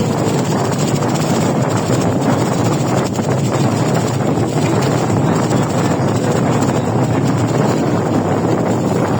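Steady wind buffeting the microphone over the even running noise of a boat under way.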